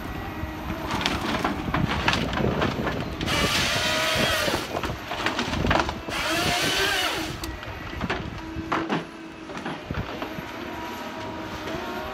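Tigercat tracked harvester at work: wood cracking and snapping as its head grabs and processes stems. Two loud bursts with a wavering pitch come about three and six seconds in as the head works through a stem, over the machine's running engine.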